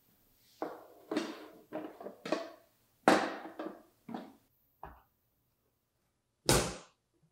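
A run of short knocks and scrapes from handling a metal Pullman loaf pan. Near the end comes a single heavy thump as the baked milk-bread loaf is turned out of the pan onto a wire cooling rack.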